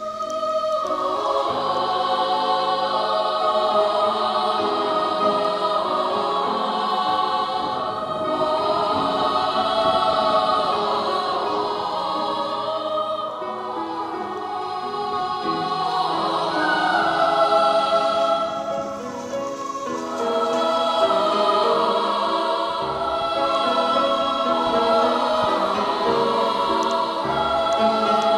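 Music: a slow song sung in Russian by a choir of voices, with long held notes.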